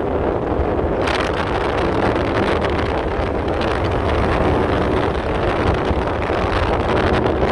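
Wind and road noise rushing past a moving car at expressway speed, buffeting the phone's microphone; it grows louder about a second in.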